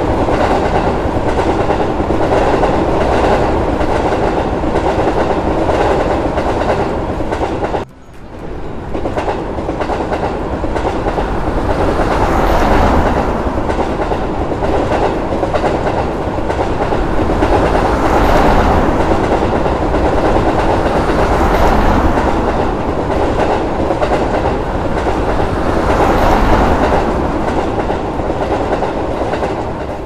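Train running on rails: a steady rumble with the clickety-clack of wheels over rail joints. It drops out suddenly about eight seconds in, comes back, and then swells and fades several times.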